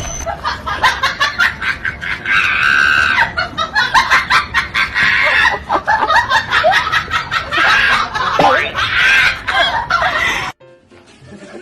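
People laughing hard and shrieking in quick bursts, cut off suddenly near the end.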